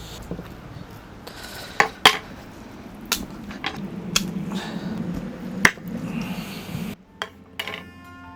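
Camp cookware being handled: several sharp clicks and knocks of metal and dishes over a steady low rushing noise.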